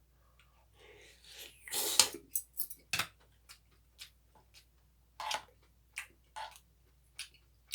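Tableware sounds while eating: a spoon or chopsticks clicking against a dish in a string of separate sharp clicks, with a short, louder rushing noise about two seconds in.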